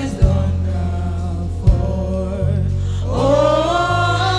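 Gospel worship singing with a live band: voices sing over sustained bass notes, and a drum strikes twice.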